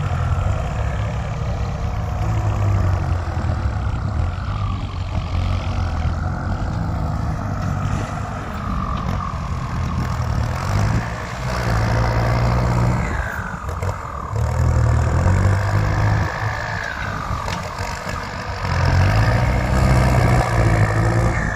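Kubota M6240 tractor's diesel engine running steadily, its low note growing louder and easing off again several times.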